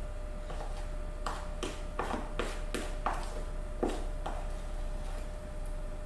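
Thick cookie dough being stirred by hand in a clear plastic tub, the utensil knocking and scraping against the tub's sides in about ten irregular clicks and taps, most of them bunched between one and four seconds in.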